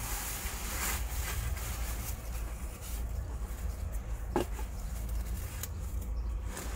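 Rubbing and scraping of packaging being handled while a potted succulent is unwrapped, with a few light knocks. Underneath is a steady low rumble of wind on the microphone.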